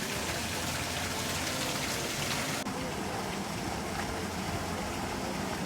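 Rushing, splashing water, a steady hiss of falling water. About two and a half seconds in, the highest part of the hiss drops away abruptly.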